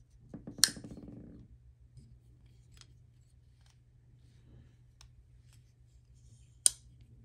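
Chris Reeve Large Sebenza 31 folding knife with a freshly oiled pivot and detent, its blade being worked open and shut. There are two sharp metallic clicks, one about half a second in and one near the end, a few faint clicks between them, and a brief low buzz around the first click.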